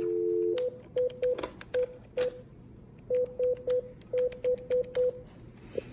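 Telephone dial tone for about half a second, then a run of short keypad beeps as a phone number is dialed, in quick groups with a pause partway through and small clicks between them.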